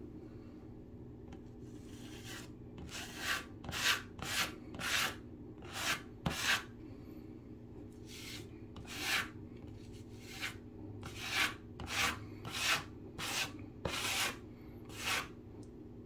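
Wooden craft stick scraping spackle across a drywall patch: a run of about sixteen short scraping strokes, with a brief pause about halfway through.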